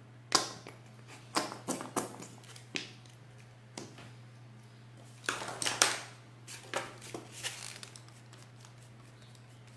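Scattered light clicks and knocks of hands handling a small paint bottle, a white tray and a paintbrush on a craft table, loudest in a cluster about five to six seconds in. A steady low hum runs underneath.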